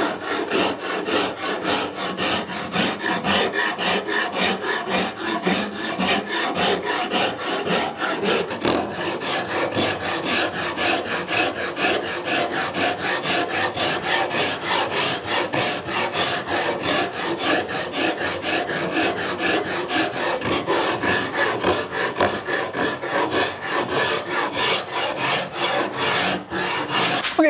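A Japanese saw rasp filing a sapele tiller blank by hand, rounding it over with rasping strokes in a quick, steady rhythm.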